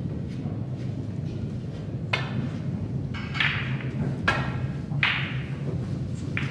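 Snooker break-off: a sharp click of the cue tip on the cue ball about two seconds in, then a clack as it strikes the pack of reds, then several knocks of balls off the cushions, each with a short ring. A steady low hum lies underneath.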